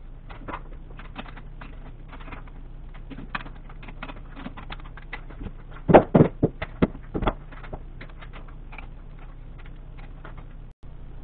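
Metal clicks and clanks of a lathe chuck being changed on a D1 camlock spindle: a run of light ticks and knocks, with a cluster of louder knocks about six seconds in.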